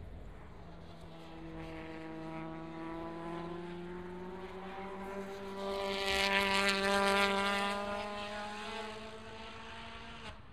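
A World Touring Car Championship race car's 1.6-litre turbocharged four-cylinder engine pulling hard through a sequence of bends, its note rising steadily in pitch as it accelerates. It gets louder as the car comes closest, peaking about six to seven seconds in, then fades away. The sound cuts off abruptly at the very end.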